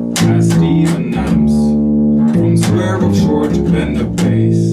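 Acoustic double bass played solo: a string of sharply attacked notes and double stops plucked with the fingers, each ringing on until the next is struck.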